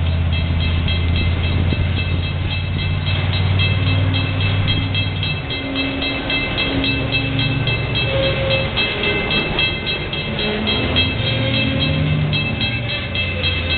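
Freight train of autorack cars rolling past at a grade crossing, a continuous rumble and clatter of wheels on rail, with the crossing signal's bell ringing over it.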